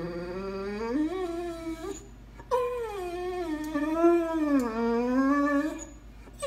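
Great Dane 'talking': long whining, howl-like cries that waver up and down in pitch, the dog's demand for a share of food. One cry ends about two seconds in, a longer one follows half a second later and runs almost to the end, and another begins right at the end.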